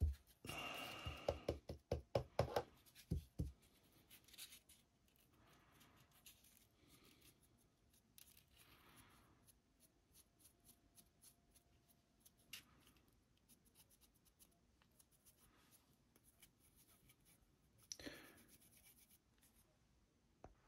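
A paintbrush scrubbing a miniature in faint, scratchy strokes while dry brushing. A cluster of louder clicks and knocks comes in the first few seconds, and a short louder scrape near the end.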